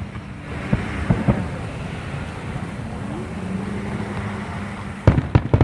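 Fireworks going off: a few sharp bangs about a second in, then a quick run of bangs near the end, over a steady background rumble with a low hum.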